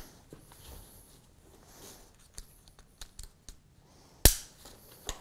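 Plastic strap clips of a hip positioner being fastened onto a gait trainer's chest prompt: a series of small clicks and strap rustle, then one sharp, loud snap about four seconds in and another just before the end.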